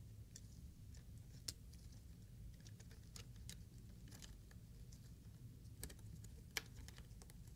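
Faint, scattered small clicks and ticks from gloved fingers working a small part loose inside an opened MacBook Pro, over near silence. The sharpest clicks come about one and a half seconds in and again near the end.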